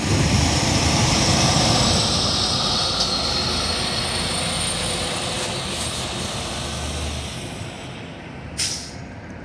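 Semi truck tractor running without a trailer drives past close by, its diesel engine rumbling and tyres loud at first, then fading as it pulls away. A brief sharp noise comes near the end.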